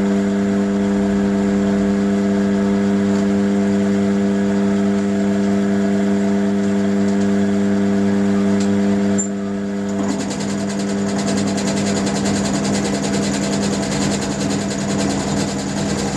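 Round-column mill drill running with a steady motor hum. About nine to ten seconds in, the sound changes to a fast, rough chatter as the end mill begins cutting across the workpieces in the vise.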